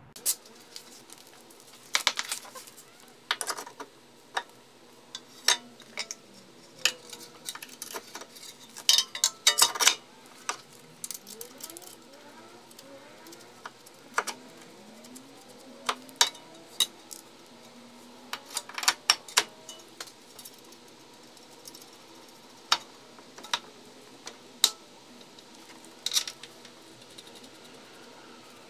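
Irregular metallic clinks and knocks of bolts and hand tools as a new aluminium control arm is fitted into a BMW E46's front suspension, with short quick clusters of clicks among single taps.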